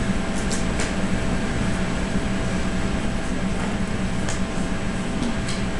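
Steady drone of a commercial kitchen exhaust hood's fan, with a few faint light clicks from work at the counter.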